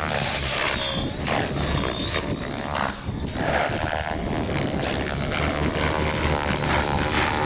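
Electric 700-size RC helicopter flying, its 530KV motor and rotor head giving a high whine whose pitch wavers as it manoeuvres, over the whoosh of the rotor blades. A low rumble of wind buffets the microphone.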